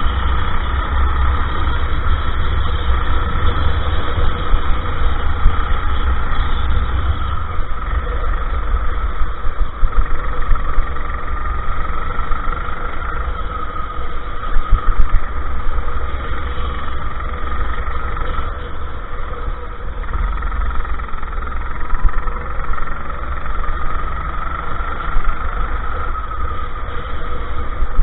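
Go-kart engine running at racing speed, its pitch wavering up and down, over heavy wind rumble on the onboard camera's microphone.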